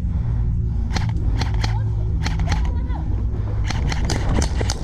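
Airsoft guns firing: a string of sharp, irregular shots, roughly two or three a second and a dozen or more in all, beginning about a second in, over a steady low rumble, with brief faint shouting.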